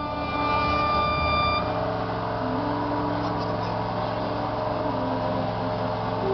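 A wind band playing a slow procession march, long held notes stepping slowly from one pitch to the next, over a steady low mechanical drone.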